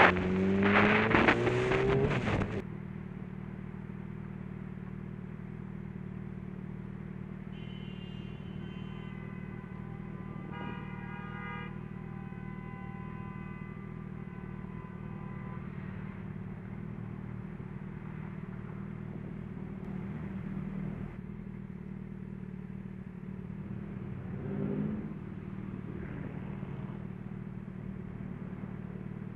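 Motorcycle engine heard from a helmet camera, revving up with a rush of wind for the first two seconds or so, then running with a steady low drone in slow traffic. A high pitched tone sounds on and off about a third of the way in, and the engine gives a short rev near the end.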